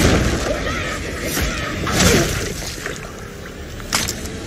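Action sound effects from a vampire-hunter film trailer mixed over its soundtrack, with a brief sliding cry about two seconds in and a sharp hit just before four seconds.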